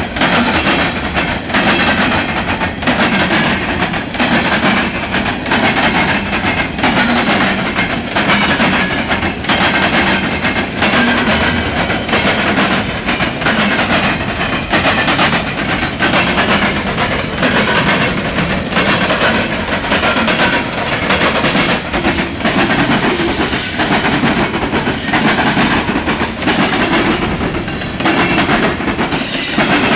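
Norfolk Southern freight train cars rolling past close by: loud, steady wheel-and-rail noise with a regular clickety-clack of wheels over rail joints, and a few short high squeals near the end.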